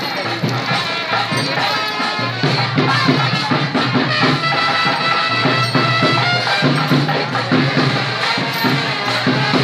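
Music with a steady percussion beat under a held melody line.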